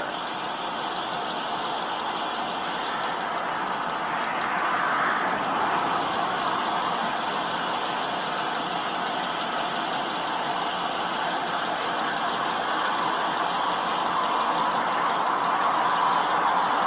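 Steady roadside traffic noise: vehicles passing on the road, swelling about five seconds in and again near the end.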